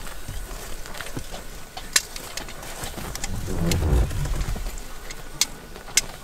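White rhinoceros grazing close by: sharp snaps and tears as grass is cropped off, several times, the loudest about two seconds in and near the end. A low rumble lasts about a second, around three and a half seconds in.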